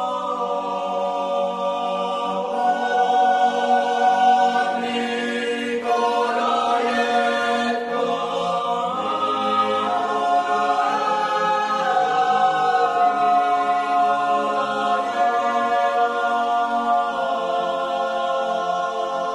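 An a cappella choir singing slow, sustained chords in unison, with the voices holding each note and moving together.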